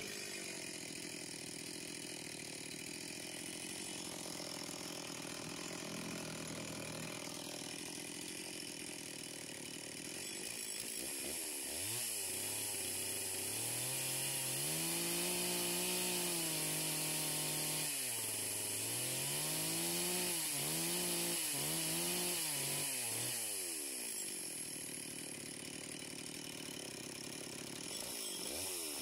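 Two-stroke chainsaw running steadily at low speed, then revved up and down several times while cutting into the wood of a carved log's base, before dropping back to a steady idle near the end.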